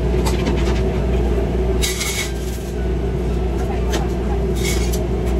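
Food truck kitchen at work: a steady drone from the exhaust hood and equipment, with frequent light clicks and clatter of metal tongs and pans. Two brief rustling hisses come about two seconds in and again near the end.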